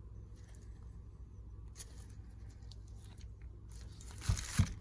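Quiet handling of the parts of a disassembled cordless impact wrench: faint scattered ticks, then two short knocks close together near the end.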